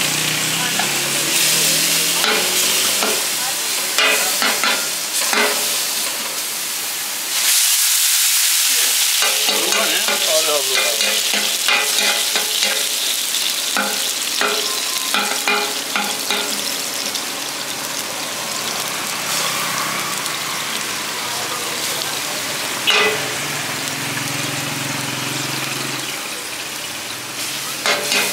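Chopped meat for tantuni sizzling on a hot griddle, with a metal spatula scraping and clicking against it as it is stirred. The sizzle surges louder for about two seconds, some seven seconds in.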